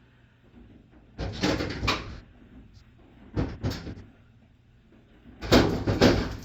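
Three bursts of clattering and knocking from the washer's panels and parts being handled during disassembly, with quiet between them.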